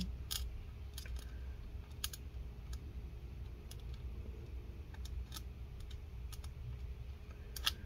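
Sparse, faint, irregular small clicks and taps as fingers thread the laptop's small metal SSD mounting standoff in by hand, over a low steady hum.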